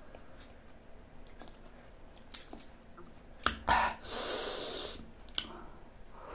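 Close-miked mouth and spoon sounds of eating passion fruit pulp: faint small clicks and chewing, a sharp click about three and a half seconds in, then a loud hiss of sucked-in air lasting about a second, and one more click near the end.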